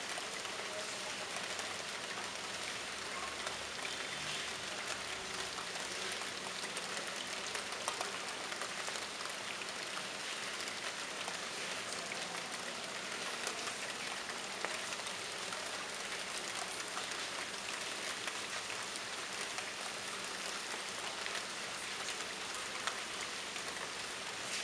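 Monsoon rain falling steadily onto a wet terrace: an even hiss of rain with many scattered sharper drop splashes.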